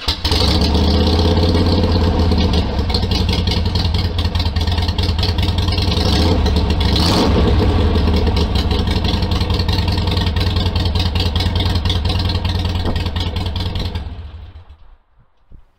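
Harley-Davidson Fat Bob's V-twin engine running with a loud, steady exhaust note, with a brief rise in revs about seven seconds in. It dies away about fourteen seconds in.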